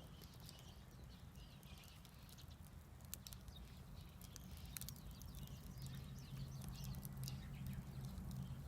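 Wood fire crackling, with irregular sharp pops and snaps over a faint steady low rumble that grows slightly louder in the second half.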